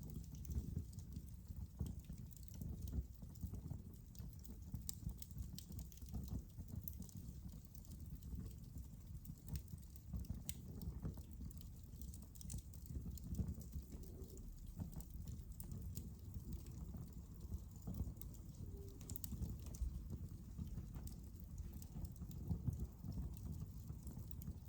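Fire crackling in a fireplace: a steady low rumble of flames with scattered sharp pops.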